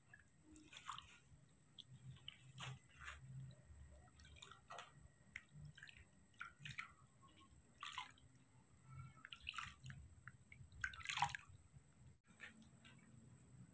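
Faint, irregular drips and small splashes of water as a hand scoops and trickles bathwater over a newborn baby monkey in a plastic basin, one every second or so, the loudest about eleven seconds in.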